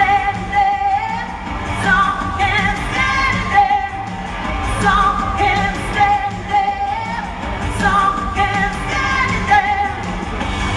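A freestyle pop song performed in concert: a solo singer's sung phrases over a backing track with a steady beat, heard through the hall's PA from far back in the audience.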